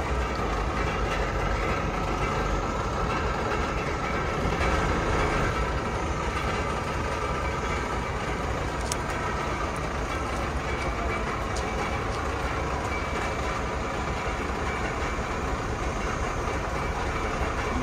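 Fire engine's diesel engine running steadily, with a couple of faint clicks.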